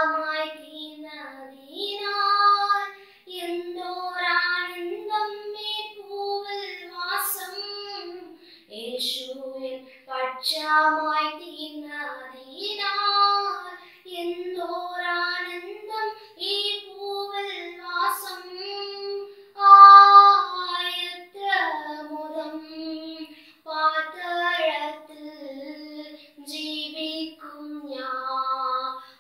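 A girl singing a Christian gospel song solo and unaccompanied, in sung phrases of a few seconds with short breaks between them.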